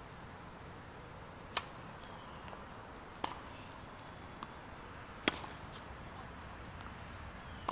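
Tennis ball struck by rackets in a rally: four sharp pops about two seconds apart, with fainter ticks of the ball bouncing between them.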